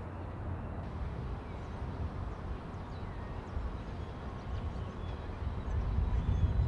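Outdoor city ambience: wind rumbling on the microphone over distant traffic, with a few faint bird chirps.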